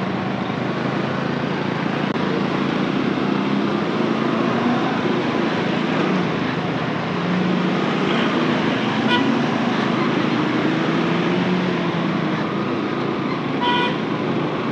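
Motorcycle engine running steadily with road and wind noise while riding, the engine drone wavering in pitch. A vehicle horn toots briefly about nine seconds in and again near the end.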